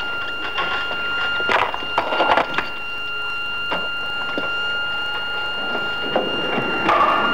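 Clicks and clunks of a pilot's harness buckles and cockpit fittings as he straps into a military jet, over a steady high-pitched whine. The loudest knocks come about one and a half to two and a half seconds in and again near the end.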